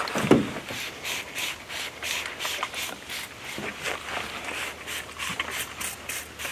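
Close rustling and rubbing of clothing and gear being handled, in short strokes about three or four a second, opening with a loud bump.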